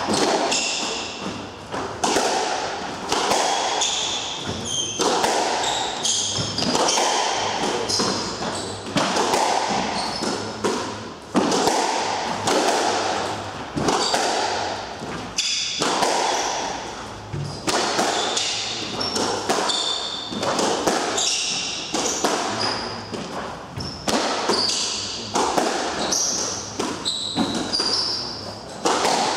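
Squash rally: the ball cracking off rackets and the court walls about once a second, each hit echoing around the enclosed court, with shoes squeaking in short high chirps on the wooden floor between shots.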